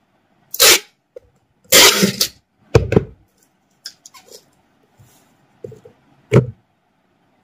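Packing tape pulled off a handheld tape dispenser and torn, sealing a cardboard box: a few loud, sudden rips, the longest about two seconds in, with quieter handling clicks between.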